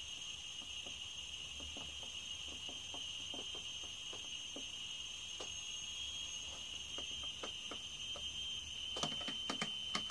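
Steady high-pitched whistle of HHO gas flowing from a balloon through a basketball inflation needle into a 26cc weed eater engine's carburetor, its pitch held even by a hand pressing on the balloon. Faint scattered clicks throughout, with a few sharper clicks near the end.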